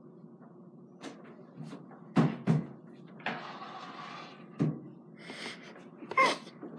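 A few sharp knocks and thumps: two in quick succession about two seconds in and two more later, with a rustle lasting about a second in between.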